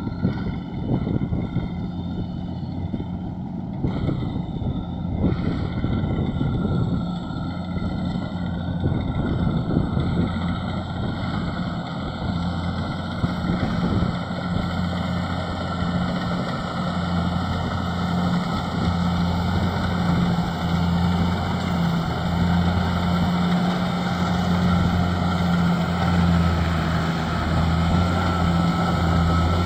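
Rice combine harvester running steadily in the field: its engine a constant low hum, with machinery noise over it.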